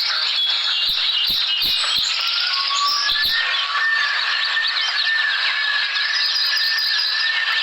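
Recorded nature ambience: a dense, steady chorus of chirping with bird calls over it, including a long whistled note in the middle. A few soft taps sound in the first few seconds.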